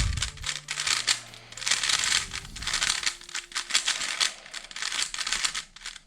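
Gan 12 Maglev 3x3 speedcube being turned very fast during a solve: a dense, rapid clatter of plastic layers clicking and snapping.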